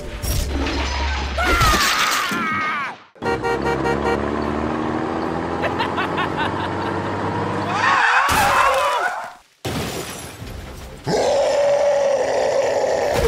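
Soundtrack of a stop-motion animation: music layered with sound effects, broken by two sudden cuts to silence about three seconds and nine and a half seconds in.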